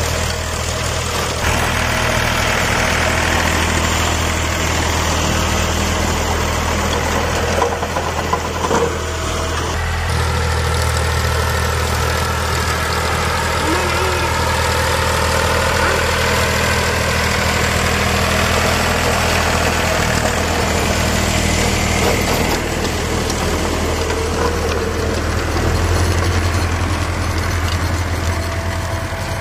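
Powertrac 445 DS tractor's diesel engine running steadily under load, driving a rotavator whose blades churn through the soil. The tone shifts abruptly a few times.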